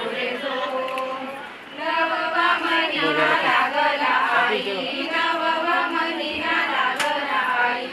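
A group of women singing a Marathi song together in unison on long, held notes, with a short break between lines about a second and a half in.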